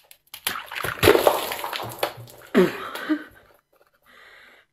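A liquid-filled ice sculpture bursting as it is bitten, its liquid splashing out loudly for a second or so, followed by two short falling cries from a woman.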